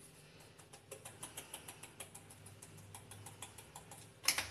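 Curry powder being shaken and tapped out of a spice container into a glass bowl, giving quick, irregular faint ticks and taps. A louder click comes near the end.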